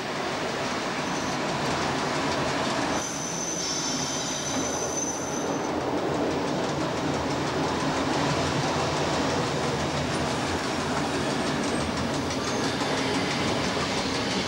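A railcar running along the track, heard from inside the driver's cab. A high wheel squeal rises over the running noise about three seconds in and lasts a couple of seconds.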